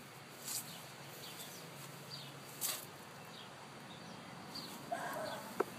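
Quiet outdoor ambience with scattered short bird chirps and a call near the end, broken by a couple of brief swishing noises and one sharp click just before the end.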